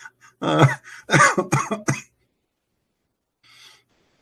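A man laughing hard and coughing, in five or so short bursts over about the first two seconds, then quiet.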